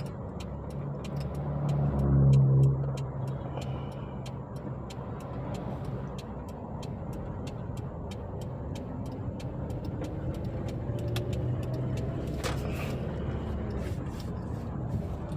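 Car engine running with a cylinder 1 misfire logged by the scan tool, swelling in revs about two seconds in and then slowly rising in pitch. A light, steady ticking runs over it.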